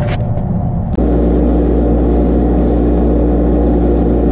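Airbrush spraying in short on-off passes as the trigger is worked, a hiss that starts and stops every half second to a second, over a steady motor hum that sets in about a second in.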